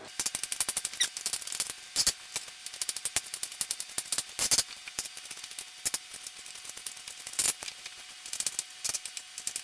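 Kitchen knife dicing sausage on a wooden cutting board: quick, irregular taps of the blade striking the board, with a few louder knocks.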